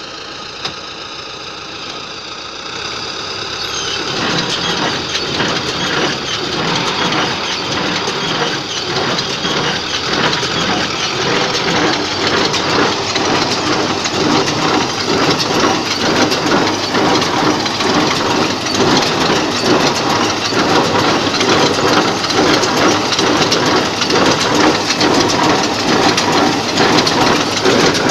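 John Deere 342 small square baler driven from a T-40 tractor, running and taking up hay: a dense mechanical clatter of the pickup, feeder and plunger over the tractor's engine. For the first few seconds there is only a steadier, quieter machine hum with a clear pitch; about four seconds in the clatter comes in and grows louder.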